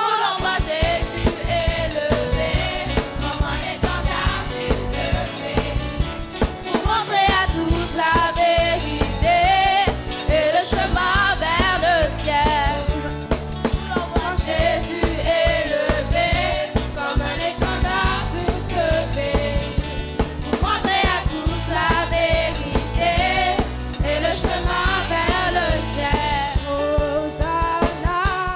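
A group of girls singing a French gospel worship song together into microphones, with instrumental accompaniment.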